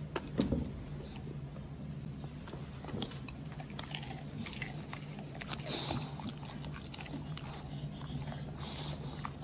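American Bully dogs chewing pieces of fried pork cutlet: irregular wet smacks, clicks and crunches of their jaws, with a louder bite about half a second in. A steady low hum runs underneath.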